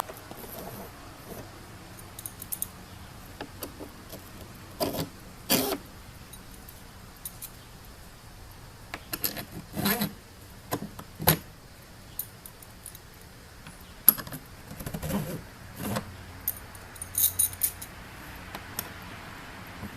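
Steel carriage bolts and hardware being handled, with irregular metallic clinks, jingles and knocks that come in small clusters.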